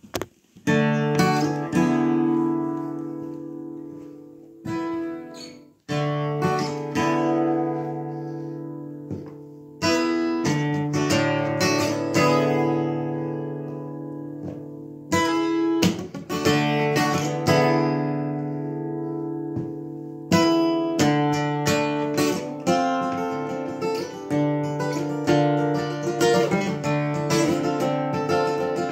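Acoustic guitar played solo, with no singing: chords struck and left to ring and fade over several seconds, then quicker, more regular strumming in the last third.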